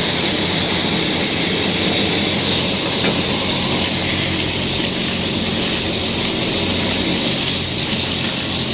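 A woodworking power tool running steadily, with a continuous high whine over its noise.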